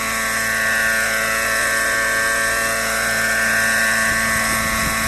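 Radio-controlled model helicopter hovering, its engine and rotor making a steady high-pitched whine that wavers slightly in pitch.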